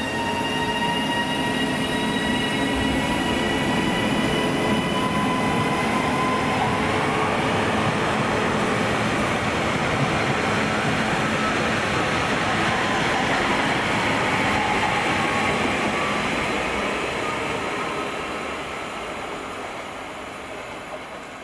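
A train going by on the track: a steady whine of several tones over the rush of wheels on rail, loudest in the middle and fading away over the last few seconds.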